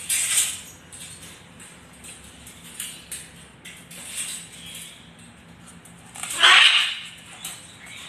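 Small green macaw walking on a floor covering, its feet making short scratchy, rustling sounds, with one louder, short, harsh sound a little past six seconds in.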